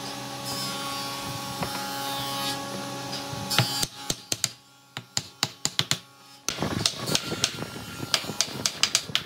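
A steady hum, then from about four seconds in a run of sharp light taps and knocks of wood on wood, about three a second, as pine slats and base pieces of a table leg are fitted together.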